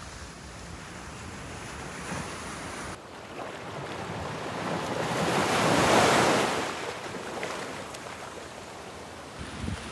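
Surf on a sandy beach: a wave rushes in and builds to a loud peak about six seconds in, then washes back down.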